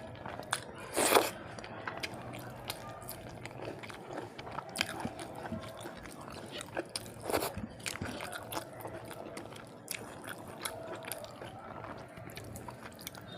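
Close-up eating: a person chewing and crunching food in many small crackles and clicks, with two louder crunches about a second in and about seven seconds in.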